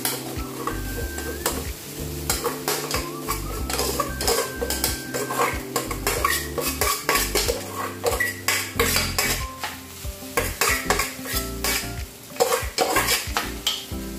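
Metal spoon clinking and scraping against a metal bowl and an aluminium wok as cooked rice is tipped in and stirred, with a light sizzle from the hot pan. Many sharp clinks and scrapes follow one another.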